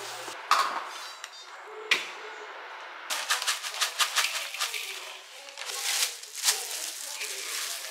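Two sharp knocks on a glass bowl, then crumbled seaweed flakes (gim-garu) poured from a plastic packet into the bowl of rice, making a dense crackling patter with the crinkle of the bag. Near the end comes the rustle of a thin plastic glove being pulled on.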